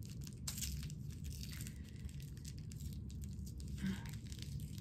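Faint rustling and light clicks of hands handling things: fingers working at a wind chime's cord and wooden piece, and paper packaging being shifted.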